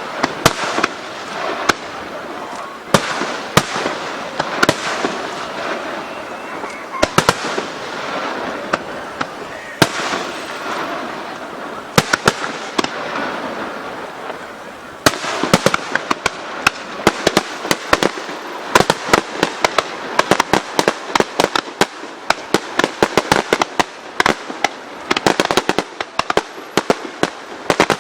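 Aerial fireworks bursting: separate loud bangs with crackle in the first half, then from about halfway a dense, rapid string of reports as the barrage fills in.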